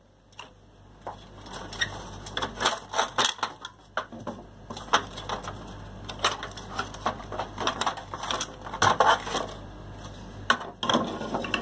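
Plastic covers being pried and pulled off the relays of a 5 kVA automatic voltage stabilizer: a run of irregular clicks, snaps and light rattles of small plastic parts being handled.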